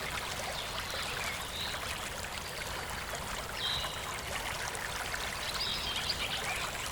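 River water flowing steadily, with a few short, high bird chirps on top, the clearest about halfway through and again near the end.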